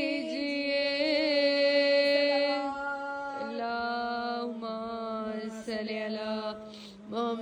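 A woman singing a Shia devotional Urdu refrain, unaccompanied, drawing out long held notes. Her voice wavers about a second in and steps down to a lower note about halfway through.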